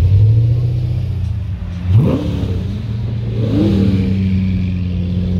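Supercar engines idling in a slow-moving queue, a steady low drone, with two sharp throttle blips whose pitch rises quickly: a loud one about two seconds in and a smaller one about a second and a half later.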